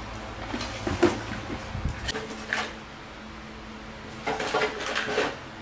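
Household items being handled and knocked together while being sorted out of a basket and plastic bags: a sharp knock about a second in and another at two and a half seconds, then a burst of rattling and clatter near the end. A low hum cuts out about two seconds in.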